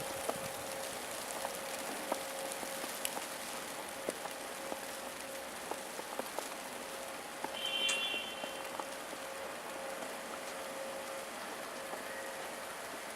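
Falling snow hitting surfaces: a steady hiss scattered with small ticks. A little over halfway through, a brief high-pitched tone sounds for under a second.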